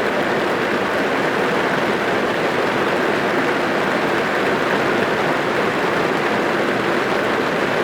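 Rain falling on a car's roof and windows, heard from inside the car as a steady, even hiss.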